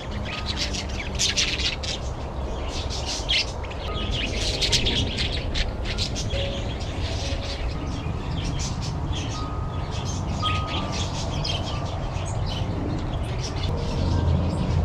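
A flock of small aviary birds chirping, with many short high chirps crowding over one another, over a steady low rumble.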